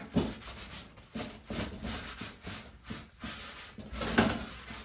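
Soft pastel being scrubbed into a heavy sheet of Stonehenge drawing paper with a folded soft pad, blending the colour in. It makes a string of irregular back-and-forth rubbing strokes, loudest about four seconds in.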